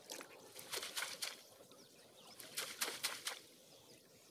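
Water splashing in short clusters as a mesh china net trap holding live fish is worked in shallow water, with fish flapping inside it.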